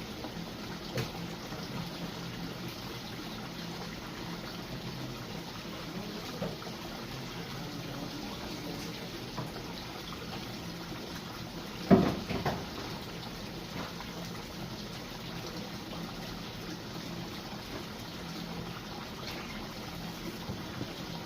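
Water trickling steadily, with a brief loud knock about twelve seconds in.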